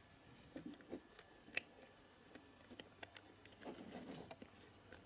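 Faint clicks and light rattles of plastic Lego bricks being handled and pressed together, with one sharper click about one and a half seconds in and a soft shuffling stretch near the end.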